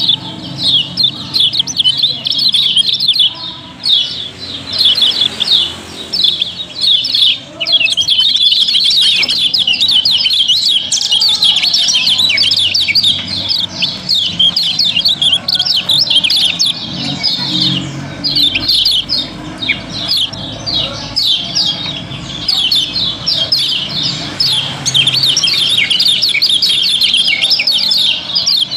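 Caged kecial kuning white-eyes chirping in a dense, continuous chatter of quick high notes, several birds overlapping, over a faint low hum.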